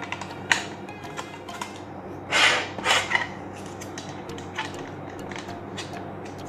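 Hard plastic track sections of an Encore Omega Supreme toy base clicking and knocking as they are handled and slid together, with a louder scraping slide about two and a half seconds in.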